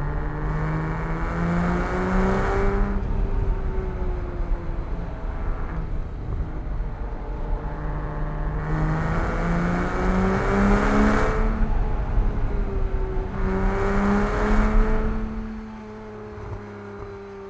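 Porsche Cayman S flat-six engine pulling through a run of curves: the revs climb three times under acceleration and fall back as the driver lifts between them, over a steady road and tyre rumble. About fifteen seconds in the engine drops to a quieter, light-load run.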